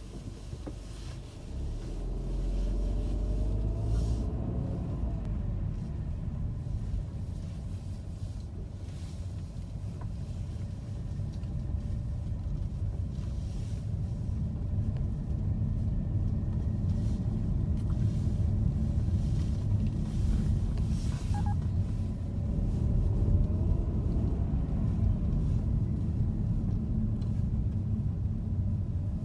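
Car driving on city streets: a steady low rumble of engine and tyres, with a faint whine that rises and falls as the car speeds up, once a couple of seconds in and again about twenty seconds in.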